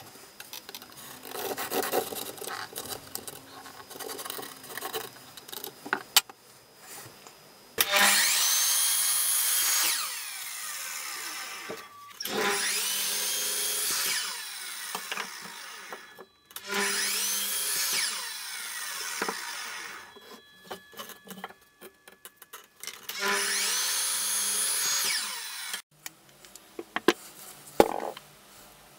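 Evolution mitre saw started four times, each run spinning up with a rising whine and cutting through a cherry board for a couple of seconds before stopping. It is preceded by a few seconds of faint scratchy rubbing.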